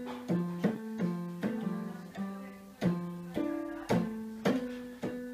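Electronic keyboard being played by a small child: single notes and pairs struck unevenly, about twice a second, each starting sharply and fading away, with no steady tune.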